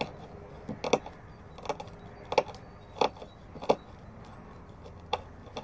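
Spine of a Root 2.0 bushcraft knife struck down a ferrocerium rod over tinder, about six short, sharp scrapes at uneven intervals: repeated tries to throw sparks onto wood shavings to start a fire.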